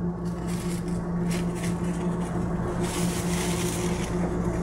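Taiwan Railways Puyuma Express tilting electric train running, heard from inside the carriage: a steady low electrical hum over wheel and rail rumble, with the hiss of track noise growing louder about three seconds in.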